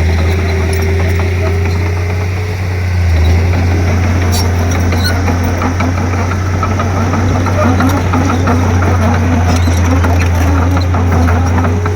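Komatsu D31P crawler bulldozer's diesel engine running with a steady deep drone, getting louder about three seconds in, with scattered metallic clanks.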